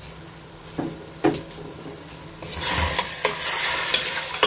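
A couple of light knocks, then about two and a half seconds in a wooden spatula starts stirring mutton pieces in hot ghee in a stainless steel pressure cooker. The meat sizzles steadily, with scraping against the pot.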